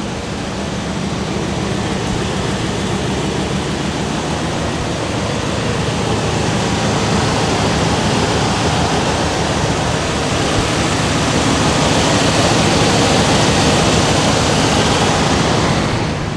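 1987 Chevrolet K10 V8 pickup driving: a steady rush of road and wind noise over a low engine drone, growing gradually louder for most of the stretch, then falling away near the end.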